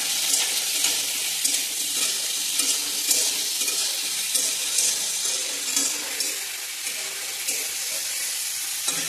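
Raw chicken pieces sizzling in hot oil with fried onion in an aluminium kadhai, a flat spatula stirring and scraping them around the pan. The sizzle is a steady hiss under repeated short scrapes.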